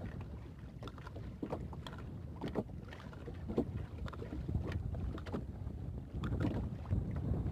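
Wind rumbling on the microphone on an open boat, with scattered knocks and rustles as a fishing net is hauled in by hand.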